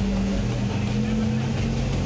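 Heavy surf roaring and breaking on the shore in cyclone winds, over a steady low drone.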